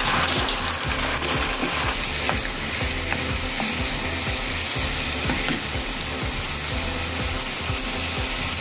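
Freshly added chopped onions and pieces of meat sizzling in hot rendered fat in a skillet, a steady frying hiss, with a few light clicks as a wooden spoon stirs them against the pan.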